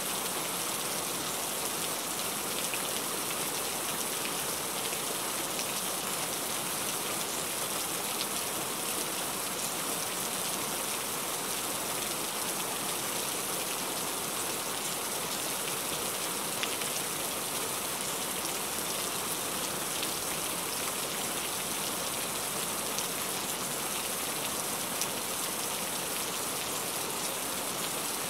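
Heavy rain falling steadily, a dense even hiss with fine scattered drop ticks.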